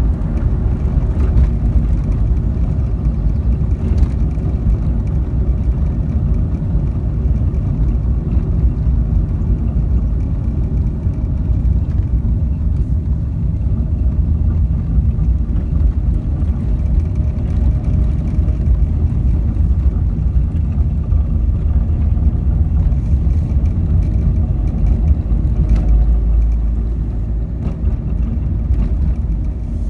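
A car driving along, with steady engine and road rumble.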